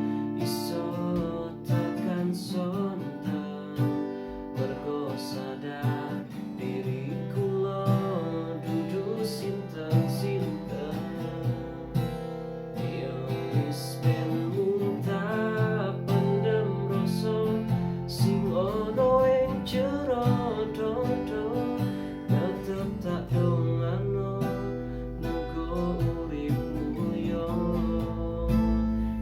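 Music led by a strummed acoustic guitar, with a melody line winding over the chords.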